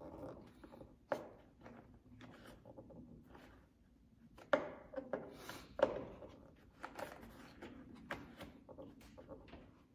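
Handling noise from fitting a fabric door storage bag to a plastic door panel: rustling and rubbing, broken by scattered sharp clicks and taps, the loudest about halfway through.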